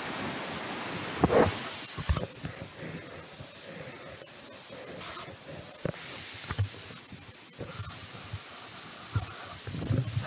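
Steady hiss of a large waterfall's rushing water and wind-blown spray, with a few brief knocks.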